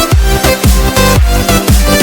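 Electronic dance music with a pounding kick-drum beat, deep bass and bright synth notes, without vocals.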